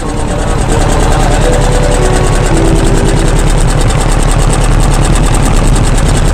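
Boat engine running steadily and loud, with a fast, even beat.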